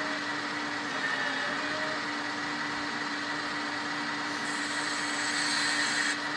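1/14 scale RC Volvo hydraulic excavator working its boom and bucket: the steady hum and whine of its hydraulic pump. A brighter, hissier sound comes in about four and a half seconds in and cuts off just before the end.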